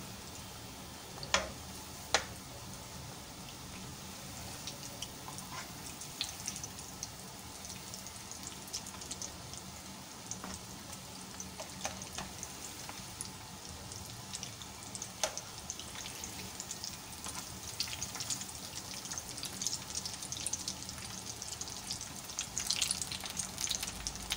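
Bread cone samosas deep-frying in hot oil in a wok: a steady sizzle with crackling pops that grow busier near the end. Two sharp clicks sound about one and two seconds in.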